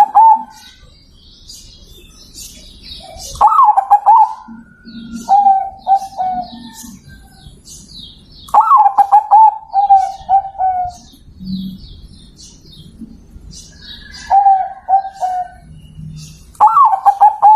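Zebra dove (perkutut) cooing in phrases every few seconds: each starts with a rising note and runs into a string of short, even coos. Smaller birds chirp faintly high in the background throughout.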